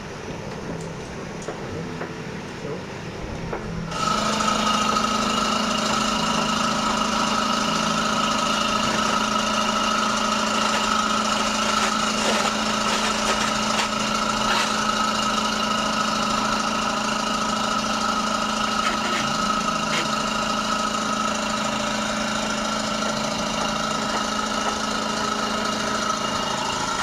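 A motor starts about four seconds in and then runs with a steady, unchanging pitched hum.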